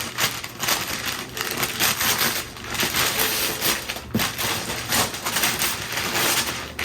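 Gift wrapping paper being torn and crumpled, a run of irregular rips and rustles.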